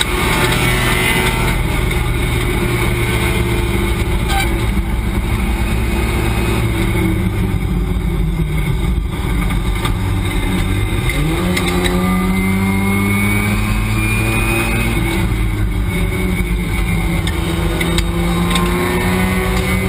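Race car's engine heard from inside the cockpit at racing speed, its pitch sinking as the car slows for a corner. About eleven seconds in, the revs jump sharply, then climb slowly as the car pulls again.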